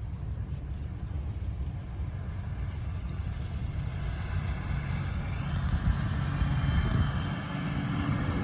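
Farm tractor engine running steadily, with a second engine or vehicle growing louder from about halfway through, as if approaching.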